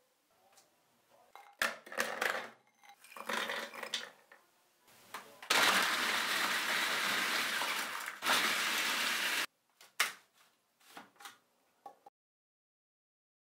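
Food processor grinding digestive biscuits and walnuts into crumbs. First come several short clattering bursts, then a steady run of about four seconds, followed by a few clicks of the plastic bowl and lid.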